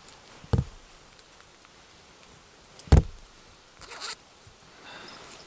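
Two dull knocks about two and a half seconds apart, the second one louder, followed by a short rustle.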